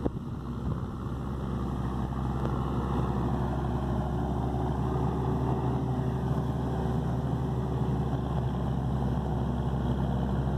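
CBT tractor's engine running steadily under load as it drives a forage harvester cutting corn for silage, growing louder over the first few seconds as it approaches.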